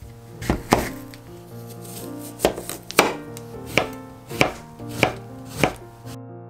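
A chef's knife cuts through a persimmon and slices a yuzu on a wooden cutting board: about eight sharp knocks of the blade meeting the board, irregularly spaced. They stop about six seconds in.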